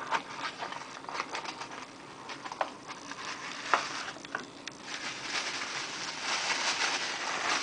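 Plastic packaging wrap rustling and crinkling as a part is unwrapped, with a few sharp clicks and knocks of handling early on the cardboard and parts; the crinkling grows denser and louder over the last couple of seconds.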